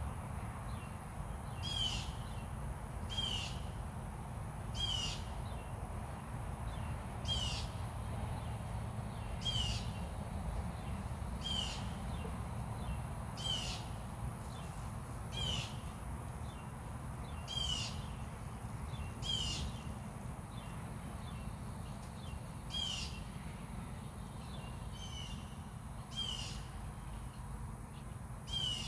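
A bird calling over and over, a short high-pitched call about every two seconds, with a steady thin high-pitched tone and low outdoor rumble behind it.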